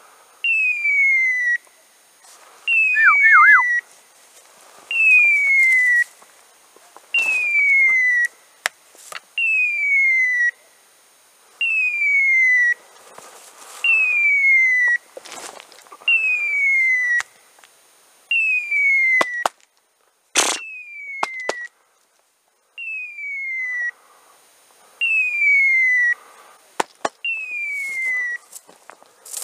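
A hunting dog's beeper collar in point mode: a falling electronic tone about a second long, repeating about every two seconds, the signal that the dog is standing still on point. A sharp knock comes about twenty seconds in.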